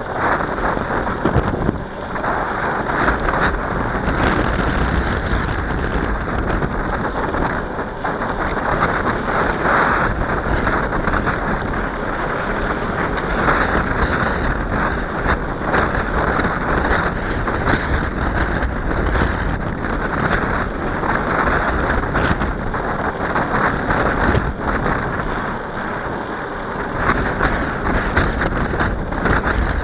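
Wind rushing over the microphone of a camera riding on a moving bicycle, a steady noise that swells and eases slightly.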